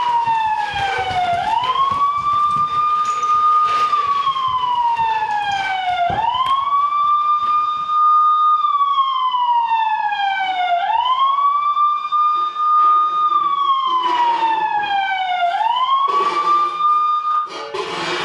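Siren wailing in a slow cycle: the tone holds high, slides down over about two seconds, then swoops quickly back up, repeating about every four to five seconds. It cuts off just before the end, and a few scattered knocks sound beneath it.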